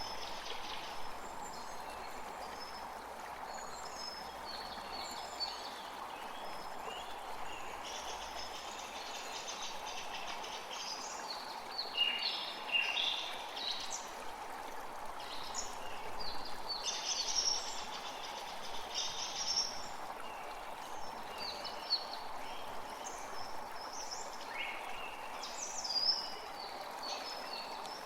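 Creek water running steadily with many small songbirds chirping over it, the calls coming thickest about halfway through and again near the end.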